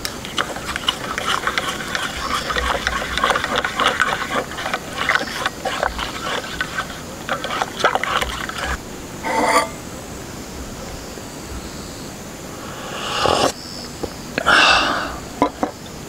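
Spoon stirring tea in a metal camping mug, a fast run of small clinks and scrapes against the mug's wall. It stops about nine seconds in, and a few separate short knocks or clinks follow.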